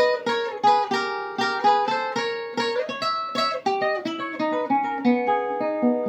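Requinto guitar playing a single-note melody, about three plucked notes a second, moving into lower, longer-held notes in the last couple of seconds.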